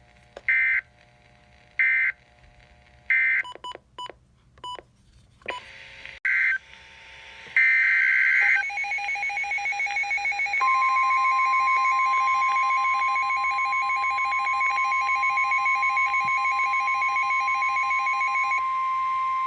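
Emergency Alert System SAME data bursts sound first: three short raspy bursts about a second apart, then two more a few seconds later. The NOAA Weather Radio warning alarm tone follows, a long steady high beep lasting about nine seconds with a pulsing buzzy tone beneath it. Together they signal the start of a new weather warning.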